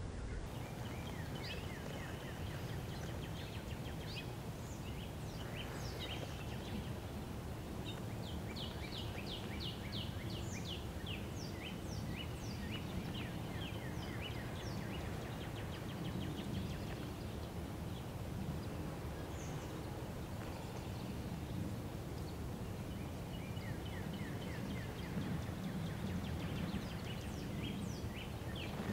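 Steady low outdoor rumble with small birds calling: runs of quick, high, falling chirps, densest in the first half and again near the end.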